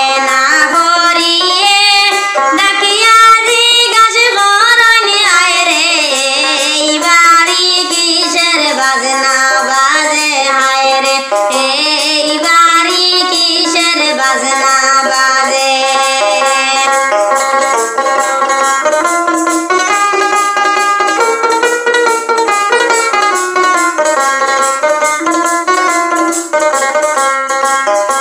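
A woman singing a Sylheti Bengali wedding song (biyer gaan), with a continuous melodic vocal line over instrumental accompaniment.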